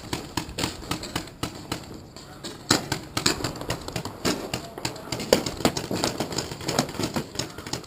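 Paintball markers firing: irregular sharp pops and clicks, several a second, some louder than others.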